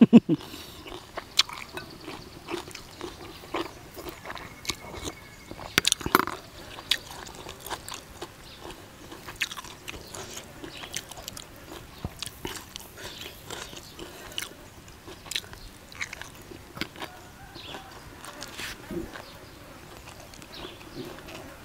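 Close-up mouth sounds of a man chewing and biting crunchy food (crispy-skinned duck larb with raw vegetables): irregular crunches and wet chewing clicks, with a louder crunch about six seconds in.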